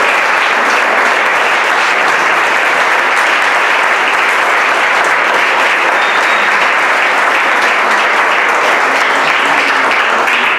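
A roomful of people applauding with steady, dense clapping that cuts off abruptly at the end.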